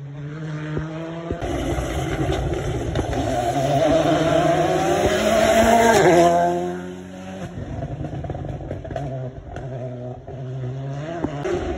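Rally car engine approaching at full throttle, its note climbing and getting louder, then passing close by about six seconds in with a sudden drop in pitch and fading as it drives away.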